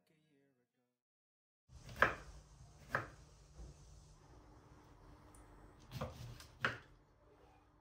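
Kitchen knife slicing oranges on a wooden cutting board: after a second or so of silence, several sharp knocks as the blade comes down on the board.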